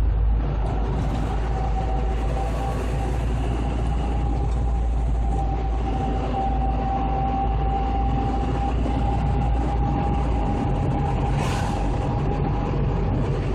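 Vehicle's engine and tyre rumble heard from inside the cabin while driving, steady and deep, with a faint steady whine and a brief hiss about eleven seconds in.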